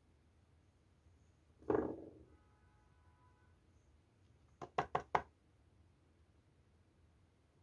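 Handling knocks from a plastic chocolate squeeze tube worked over a plastic mould: one dull thump about two seconds in, then four quick sharp knocks in close succession a few seconds later.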